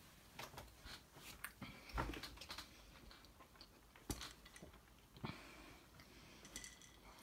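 Faint chewing of a mouth stuffed full with a whole Hawaiian sweet roll, with scattered soft clicks.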